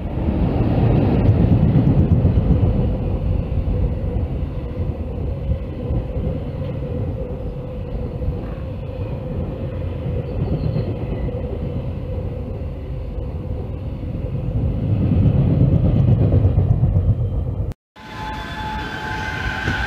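A freight train passing at speed: an electric locomotive followed by a long line of container wagons, giving a continuous rumble of wheels on rail. It is loudest as the locomotive goes by at the start and swells again near the end. After a sudden cut near the end comes a quieter, different train sound with a steady high whine.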